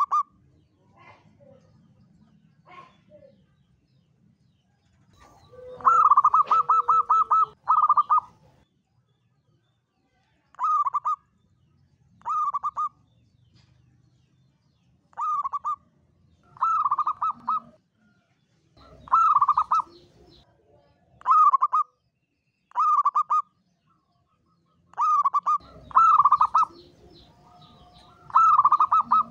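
Zebra dove (perkutut) calling in short phrases of rapid, stuttering cooing notes, repeated every couple of seconds, with one longer rolling phrase about six seconds in.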